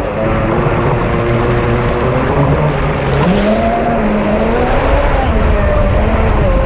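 Radio-controlled speedboat's electric motor whining at high speed over the hiss and splash of water rushing past the hull. The pitch wavers, and climbs about three seconds in.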